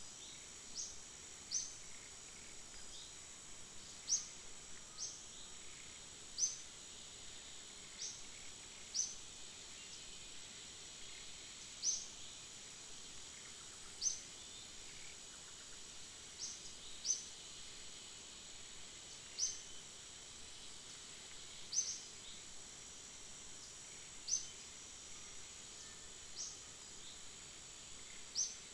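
A steady, high-pitched insect drone runs throughout. Short, sharp chirps ring out over it every second or two, each one quickly falling in pitch; they are the loudest sounds.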